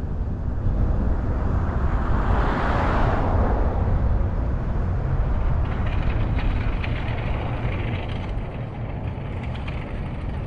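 Road noise of a car driving on city streets: a steady low rumble of tyres and engine, with a louder rush that swells and fades about two to three seconds in.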